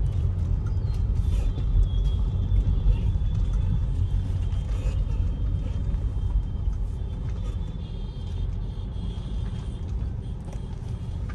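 Low, steady rumble of a car driving in traffic, heard from inside the car.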